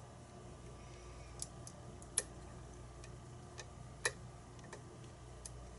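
Faint, irregular clicks of lock picking tools working the pins of a challenge padlock, two of them sharper a little after two seconds and about four seconds in.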